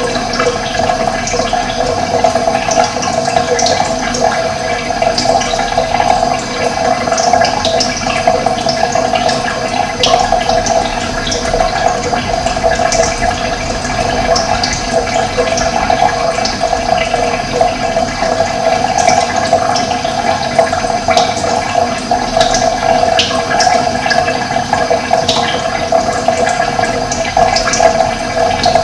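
Running water flowing steadily, a dense, even rush, with birds chirping in short, high calls scattered over it.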